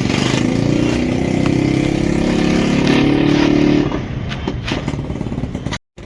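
Motorcycle engine running close by, strong and steady for about four seconds, then falling away to a lower rumble; the sound drops out completely for a moment near the end.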